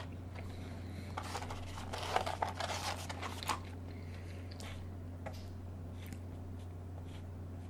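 Close-miked eating-show sounds: about a second in, two seconds of soft crinkling and crunching from food and its paper packaging, then a few faint scattered clicks, over a steady low electrical hum.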